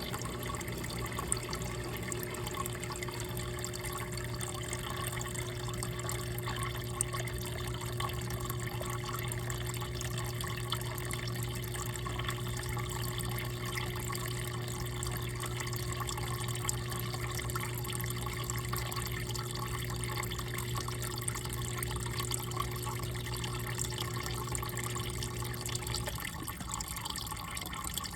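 Small electric water pump, switched by an Arduino-controlled relay, running with a steady hum while water pours in to refill the container. The hum cuts off suddenly near the end.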